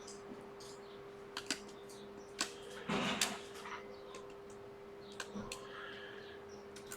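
Scattered light clicks and a brief rustle of small-parts handling as an iPhone logic board is unclipped and taken off the bench, over a steady electrical hum.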